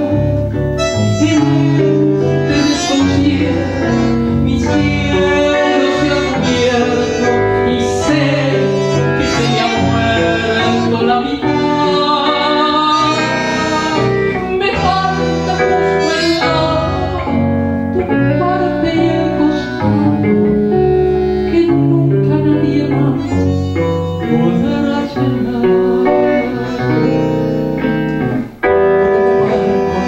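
Live tango ensemble music: bandoneón over guitar and bass, with a brief break near the end.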